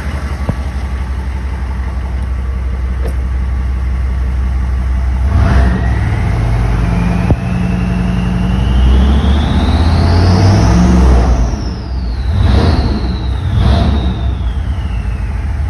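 GM 6.5 L turbo diesel engine heard from inside the cab, idling at first, then brought up above idle about five seconds in. A turbocharger whistle rises steadily in pitch for several seconds, then falls away near the end. The engine has a newly installed, freshly timed injection pump and is running well.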